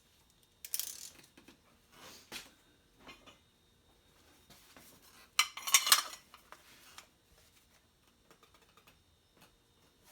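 Metal hand tools clinking against metal engine parts: a few scattered clicks, then a louder cluster of clinks and rattles about six seconds in.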